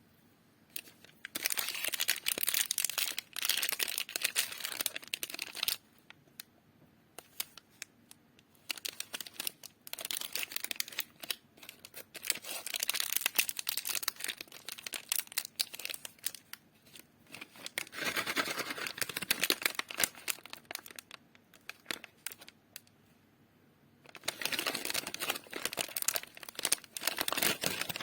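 Snack wrappers on chocolate and wafer bars being crinkled and torn open, in several spells of dense crackling separated by short pauses.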